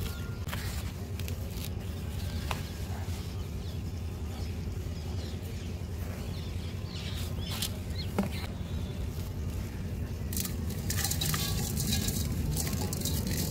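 Dry dust and crumbly dry mud handled in plastic basins: soft patters and scattered light clicks as it is scooped and packed by hand, turning to a denser grainy hiss over the last three seconds as a packed dry-mud lump crumbles apart. A steady low hum runs underneath.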